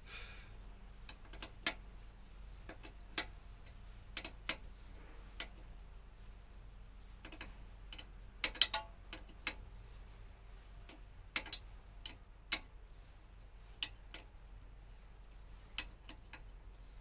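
Irregular sharp metal clicks and clinks, about one a second with some in quick pairs, from hand tools and brake parts being handled while a front disc brake caliper is put back together.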